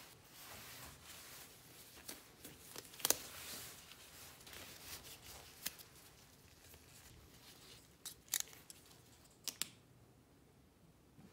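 Rubbing and rustling of nitrile gloves, then a small plastic safety cutter slitting the tape along the seams of a cardboard box, with a few sharp clicks, the loudest about three seconds in.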